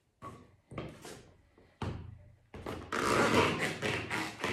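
Tall rubber boots knocking on a parquet floor and a wooden bootjack a few times, then a scuffing and rubbing of the boots against the jack near the end.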